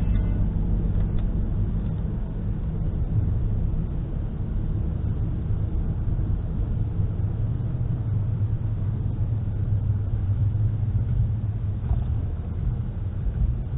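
Car engine and tyre noise heard from inside the cabin through a dashcam microphone: a steady low rumble as the car drives along, slowing from about 30 mph to under 20.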